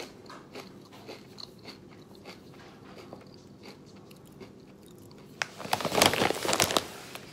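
Mouthful of kettle-cooked potato chip being crunched and chewed, a run of faint crisp cracks. Near the end, a loud burst of rustling and crackling lasting about a second.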